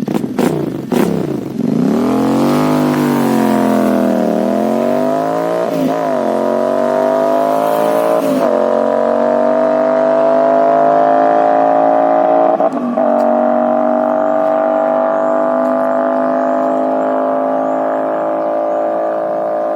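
Royal Enfield 650 parallel-twin engine running loud through Gursewak aftermarket exhausts with the dB killers removed. The revs swing up and down for the first few seconds, then climb slowly and steadily, with short dips in pitch about six, eight and thirteen seconds in.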